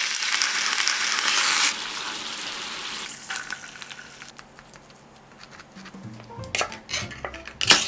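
Food sizzling in hot oil in a frying pan, loud at first, dropping sharply after about a second and a half and fading out by about four seconds in. From about six seconds in, background music plays, with a few sharp clicks over it.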